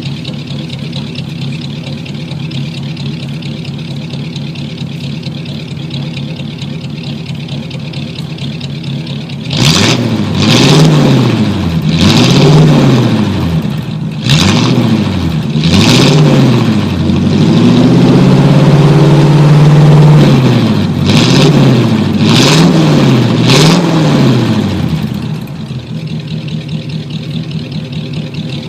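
A 1949 car engine idling steadily, then revved up and down in a run of short blips, held up once for a couple of seconds, before dropping back to a steady idle near the end.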